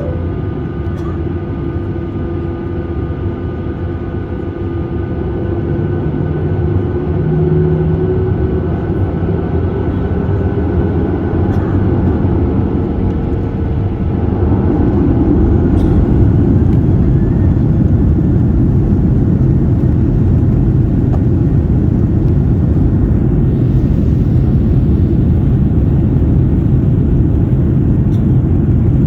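Cabin sound of a Boeing 737-800's CFM56 jet engines running with a steady hum and a low rumble. Both grow gradually louder over the first half, then hold steady.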